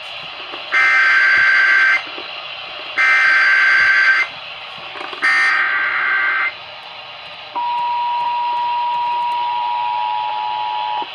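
Emergency Alert System SAME header: three short bursts of digital data tones, about a second apart, then the steady two-tone EAS attention signal, which cuts off near the end. It is the coded start of a broadcast emergency alert being relayed to other stations.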